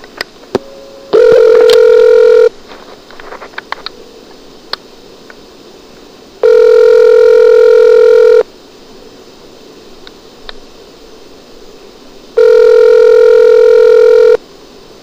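Telephone ringback tone heard down the phone line: three rings of about two seconds each, four seconds apart, while the called phone rings unanswered. A few clicks on the line come just before the first ring.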